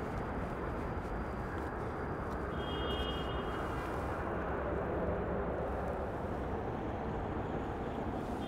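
Steady rumble of distant city traffic, swelling slightly midway.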